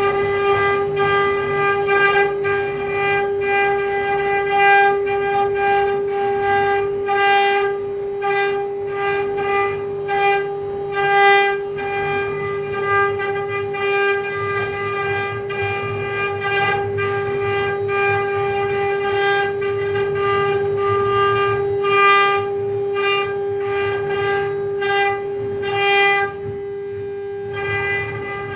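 Mini CNC engraving machine running, its spindle giving a steady high whine throughout, with irregular short bursts of rasping cutting noise.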